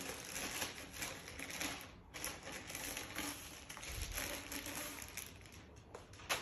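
Plastic packaging crinkling and rustling as it is handled and pulled off a rolled vinyl graphics stripe, with a sharp tap near the end.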